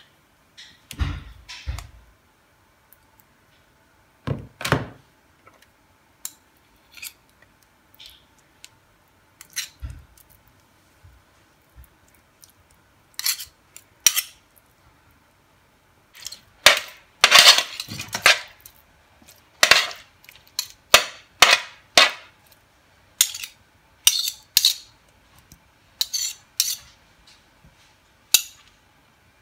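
Metal spoons scraping and clinking against a metal baking tray as marinated potato cubes are turned over, in irregular strokes that come thicker in the second half.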